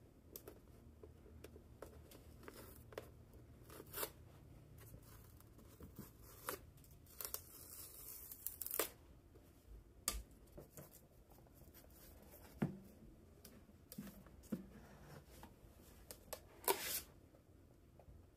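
Paper seal stickers being peeled and torn off a cardboard smartphone box, with small scratching and handling clicks on the box. There is a longer tearing rasp about eight seconds in, and the loudest rasp comes near the end.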